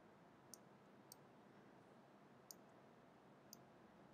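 Four faint, sharp computer mouse clicks, spread over a few seconds against near silence, as an image on screen is grabbed and resized.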